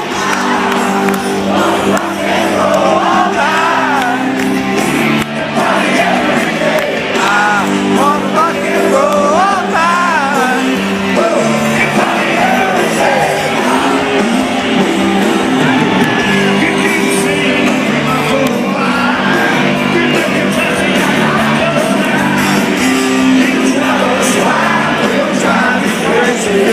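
Loud live music with sustained held chords, heard from within a crowd, with many people shouting, singing along and whooping over it.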